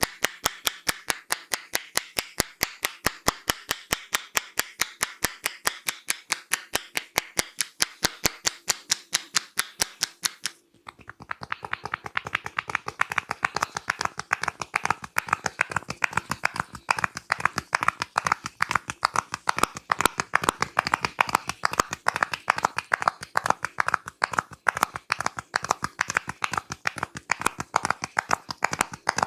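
Barber's hands striking rhythmically in the fast percussion strokes of an Indian head massage, about four to five sharp slaps a second. They stop briefly about ten seconds in, then resume faster and less evenly.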